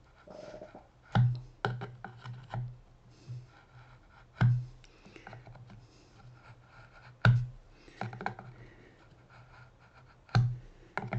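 Marking knife scribing dovetail layout lines into wood, with faint scratchy strokes between several sharp knocks as the knife, square and workpiece are set against each other on the bench.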